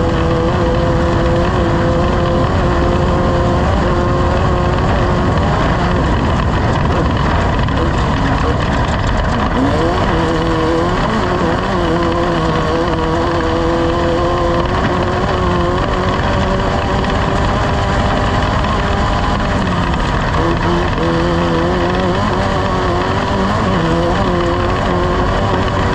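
Off-road race vehicle's engine running hard throughout, its pitch dipping and climbing several times with the throttle, over a steady rush of noise.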